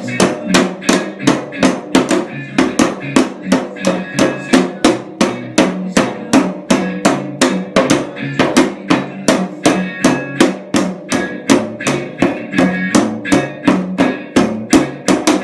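Snare drum played with sticks in a steady, even beat of about three to four strokes a second, with music playing along underneath.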